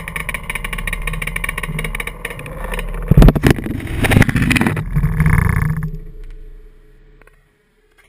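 A motor vehicle engine running steadily, with several very loud knocks in the middle. The sound then dies away over a second or two.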